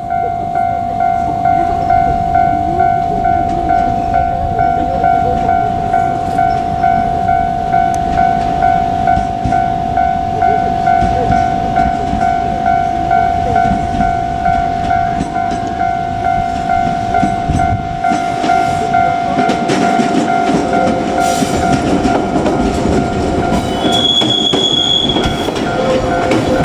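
A Japanese level-crossing warning bell rings steadily, a repeating electronic ding about one and a half times a second. From about 18 seconds in, a train running through the crossing joins it, with wheel clicks over the rail joints and a brief high wheel squeal near the end.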